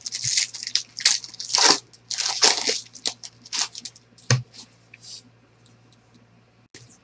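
Foil wrappers of baseball card packs being torn open and crinkled: a run of sharp rips and crinkles over about the first four seconds, then fainter ticks as the cards are handled.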